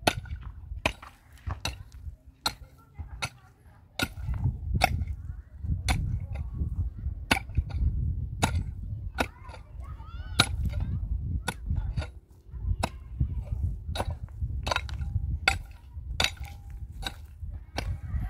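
Repeated sharp blows of a hand tool, such as a hammer or axe on house-building work, about one to two strikes a second at an uneven pace. A low rumble runs underneath.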